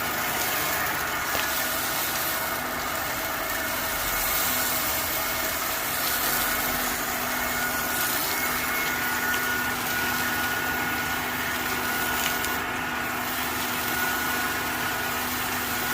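Steady workshop machine noise: a motor running without change, with a hum and a few held tones under a constant hiss.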